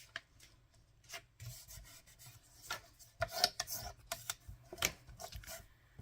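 Paper and cardstock being handled: irregular rustling, rubbing and light taps as folded pages are slid into place and tried for fit.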